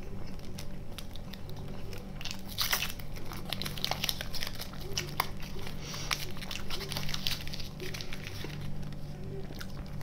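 Close-up chewing and biting of a person eating chocolate candies, with wet mouth sounds and sharp crackling clicks that are densest about two to three seconds in. A steady low hum runs underneath.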